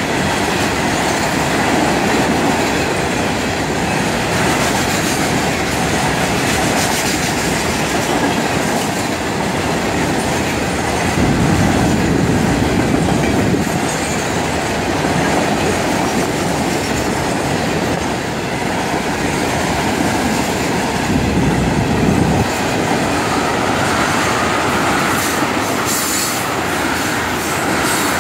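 Freight train cars, open hoppers and then tank cars, rolling past close by: a steady rumble and clatter of steel wheels on the rails.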